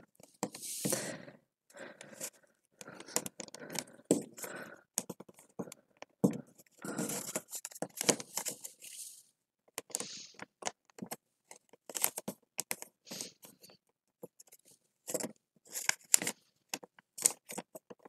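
Glue stick rubbed over folded paper flaps: uneven scraping and paper rustling, broken by many short clicks and taps.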